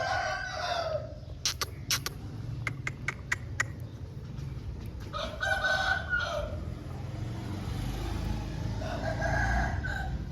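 Aseel rooster crowing in short crows, three in all: one ending about a second in, one in the middle and one near the end. Several sharp clicks come between the first two crows, over a steady low rumble.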